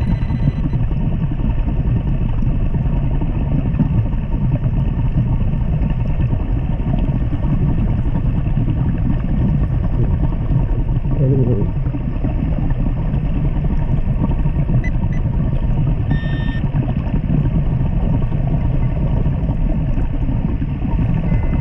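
Steady low underwater rumble picked up by a submerged camera, with a faint steady tone under it and a brief higher tone about sixteen seconds in.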